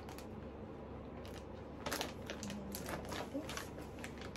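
Plastic vacuum storage bag crinkling as hands work its zip seal, with irregular crackles and clicks, the loudest about two seconds in.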